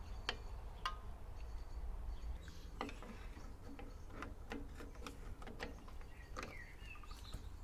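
Faint, irregular metallic clicks and taps as a screwdriver levers the bottom return spring of a 1991 Rover Metro's rear drum brake across the brake shoes towards its hole.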